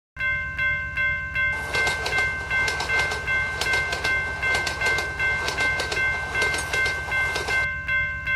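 Japanese railroad crossing alarm sounding its repeating kan-kan, about two and a half rings a second. A train passes through from about a second and a half in until near the end, its wheels clattering over the rail joints.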